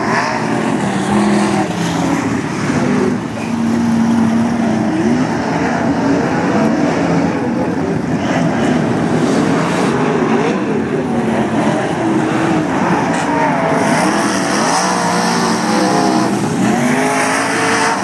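Sprintcar V8 engines running hard around the dirt oval, their pitch rising and falling repeatedly as the cars circle.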